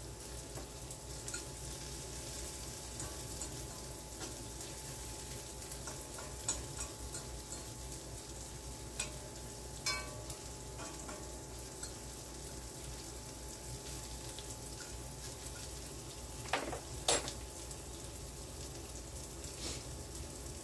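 Chopped sausage, onion and sweet pepper browning in a cast-iron skillet: a steady sizzle, with a fork now and then scraping and tapping the pan, and a couple of sharper knocks a few seconds before the end.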